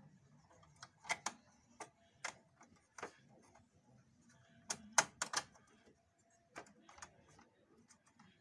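Irregular sharp clicks and taps of parts being handled and fitted on a copier's document feeder, the loudest pair about five seconds in.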